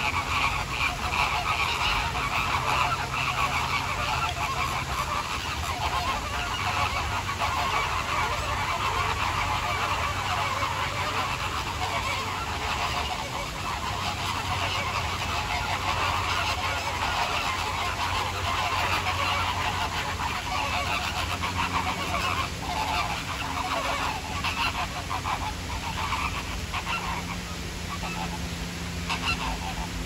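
A flock of flamingos honking, with many goose-like calls overlapping into a continuous chatter.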